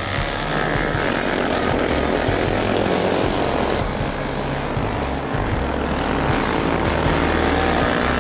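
Small motorcycle engine running steadily through a stint of racing.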